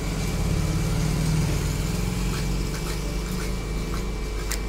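A motor vehicle's engine running at a steady low drone, strongest in the first couple of seconds and then easing off, over street background noise.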